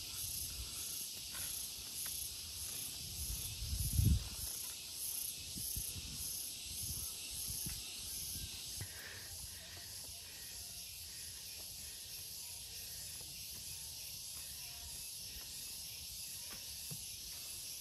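Steady high-pitched drone of forest insects, with scattered low thuds of footsteps on the trail and a heavier thump about four seconds in.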